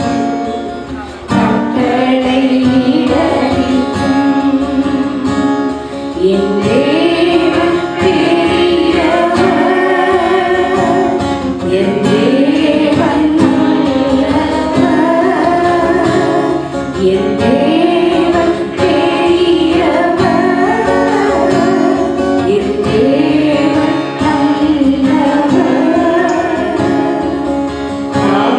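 A woman singing a Tamil Christian devotional song through a microphone, with plucked-string accompaniment under her voice.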